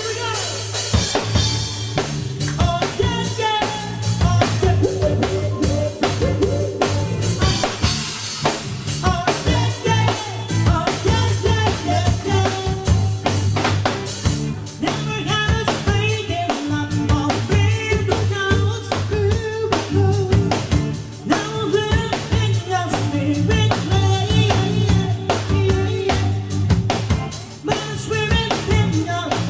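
Pop song with a driving drum-kit beat, bass and a singing voice.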